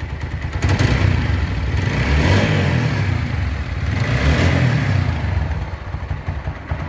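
The single-cylinder engine of a TVS Apache RTR 4V motorcycle, freshly rebuilt with a new camshaft, rocker arms, valves and piston/cylinder work, running and being revved up and down twice. It is still new and not yet run in.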